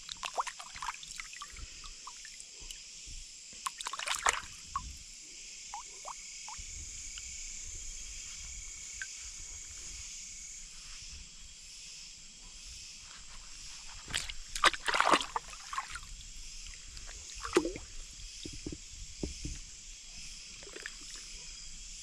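Water splashing and sloshing now and then, loudest about 14 to 15 seconds in, over a steady high-pitched chorus of night insects.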